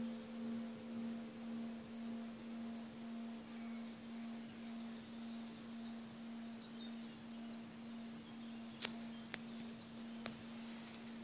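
Lingering hum of a 1926 church bell slowly fading: one steady low tone that swells and dips about twice a second, with fainter higher partials dying away. Three sharp clicks come near the end, the first about nine seconds in.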